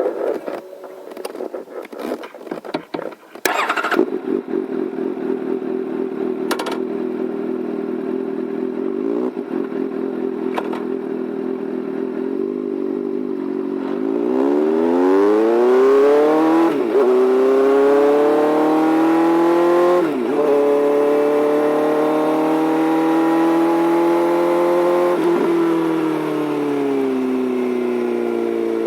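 Suzuki GSR750's inline-four engine through a titanium slip-on silencer with the baffle removed, riding. It runs steadily at first, then accelerates about halfway through, the pitch climbing with brief dips at three upshifts, and eases off near the end.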